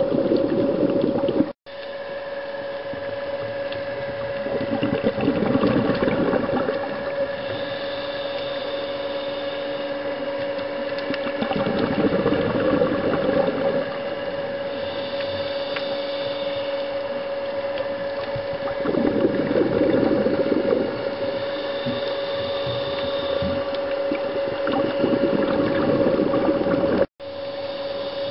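Underwater scuba regulator breathing: bubbly exhalations swell up about every six or seven seconds over a steady hum. The sound drops out briefly twice.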